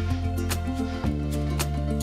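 Background music: an upbeat track with guitar, a steady bass line and a regular beat.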